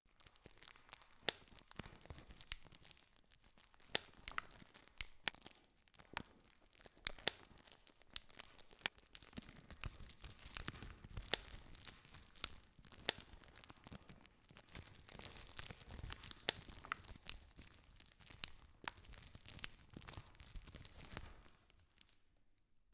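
Wood campfire crackling: irregular sharp pops and snaps over a soft hiss.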